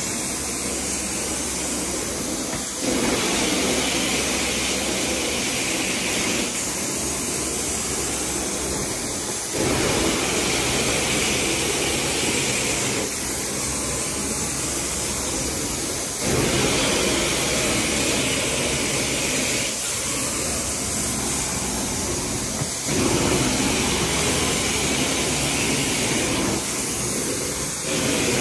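Sapphire Scientific 870 truckmount carpet-cleaning wand running: a loud, continuous rush of vacuum suction and spray hiss as the wand is drawn across the carpet. The sound shifts about every three seconds between a higher hiss and a deeper, slightly louder rush, in time with the back-and-forth strokes of the wand.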